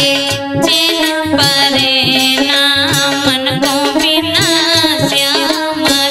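Indian folk malhar music: a wavering melodic lead over a steady drum beat.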